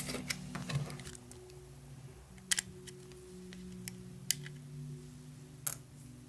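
Sharp clicks and snaps of small laptop parts and tools being handled: a cluster at the start, a double click about two and a half seconds in, and the loudest near the end. Soft background music with sustained low notes plays under them.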